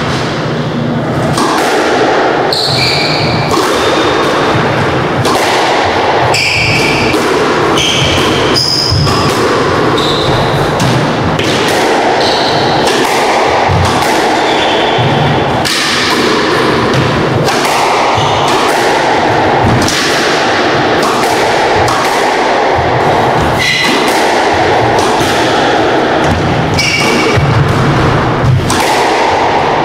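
A squash rally: the ball is struck by rackets and hits the court walls with a sharp crack about every second. Between the hits come short high squeaks of court shoes on the wooden floor.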